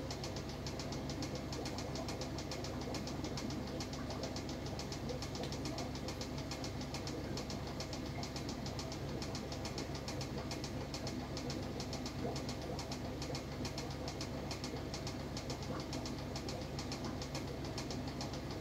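Aquarium pump running: a steady low hum with a fast, even rattle over it.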